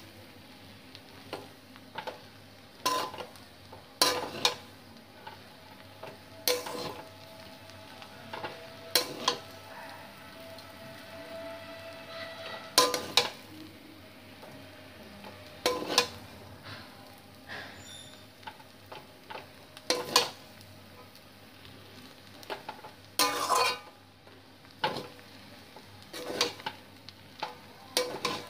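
Spatula stirring and tossing noodles in a wok, knocking against the pan at irregular intervals every second or two over a faint sizzle of frying.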